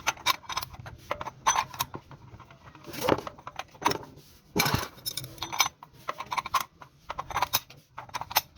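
Adjustable wrench clinking and clicking against the oil filter cap as it is tightened down, in irregular metallic clicks with a couple of louder knocks about three and five seconds in.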